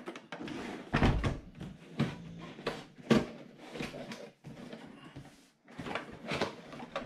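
A large cardboard box being handled on a table: a series of knocks, scrapes and rubbing as it is turned over and set down, the sharpest knock about three seconds in.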